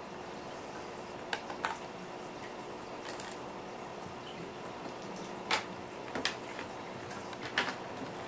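Scattered small clicks and taps of screwdrivers, screws and plastic laptop-lid parts being handled while the LCD panel's mounting screws are taken out, over a faint steady hum.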